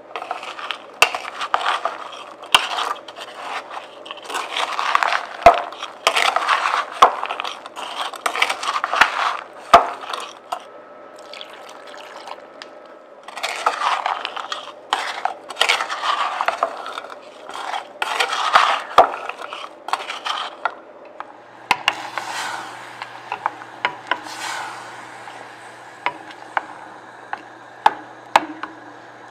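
Wooden spatula stirring frozen blueberries coated in sugar and cornstarch in a stainless steel saucepan: uneven scraping with sharp clicks of the frozen berries against the metal. About two-thirds of the way through a low steady hum comes in and the stirring turns softer and sparser as the berries thaw into a wet filling.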